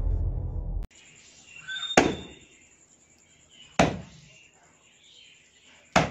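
Music cuts off about a second in. Then a heavy meat cleaver chops into a goat's head three times, about two seconds apart, each a single sharp blow.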